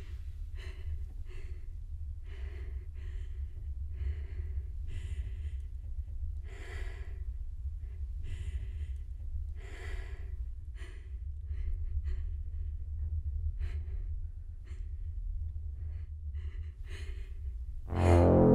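A woman breathing hard in ragged gasps and sighs. There are a few long, deep breaths early on, then shorter, quicker ones in the second half.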